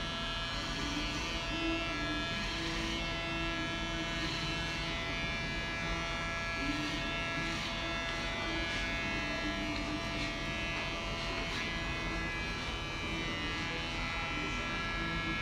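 Cordless electric hair clipper running in a steady buzz while cutting hair.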